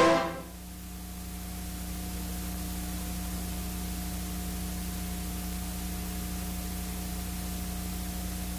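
Steady hiss with a low, steady hum underneath: the background noise of the recording itself, heard in the gap between pieces of music. Orchestral string music fades out at the very start.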